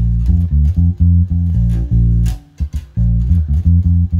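Electric bass guitar played solo, plucking a syncopated groove on the B-flat root chord: short, separate notes running do, so, mi, so, so, so, do, do (root, fifth, third, fifth), with a brief gap about two and a half seconds in.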